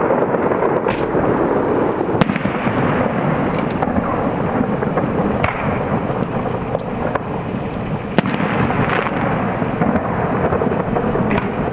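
Aerial firework shells bursting in quick succession, their booms running together into a continuous rumble, with sharp single reports about two seconds in and about eight seconds in.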